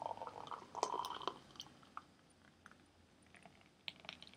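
Thick smoothie pouring from a blender jug into a ceramic mug: a faint gurgling stream for the first second or so, then scattered small wet clicks.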